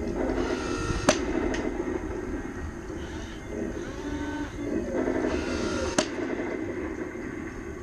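Small electric drive motor and gearbox of an RC Ford GPA model running, its whine rising and falling with throttle, with two sharp knocks, about a second in and near six seconds.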